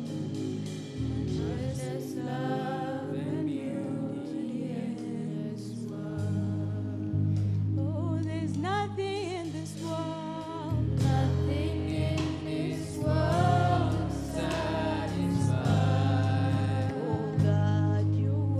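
Gospel worship song: voices singing over an instrumental backing with sustained bass notes and a steady beat.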